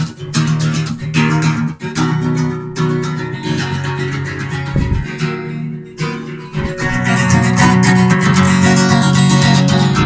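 Acoustic guitar strummed chords, with a short low thump about five seconds in.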